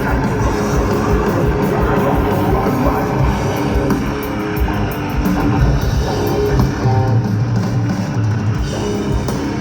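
Death metal band playing live: heavy distorted electric guitars over a driving drum kit.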